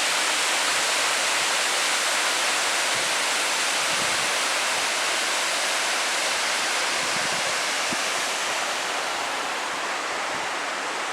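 Steady rushing of water falling down a cascade, a constant hiss that stays even throughout.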